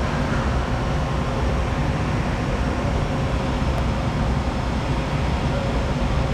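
Steady drone of industrial machinery running: a low hum under an even noise, with faint steady whining tones above it.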